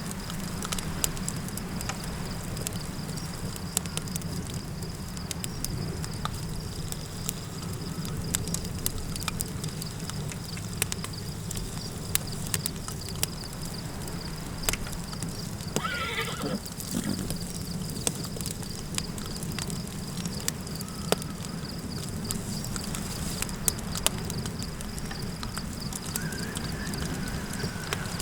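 Campfire crackling in short, irregular snaps over a steady low rumble of wind. About sixteen seconds in, a horse whinnies once, its pitch sliding down.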